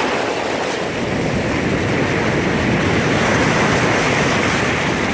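Ocean surf washing in around the phone at close range, a steady rush that swells a little in the middle, with wind rumbling on the microphone.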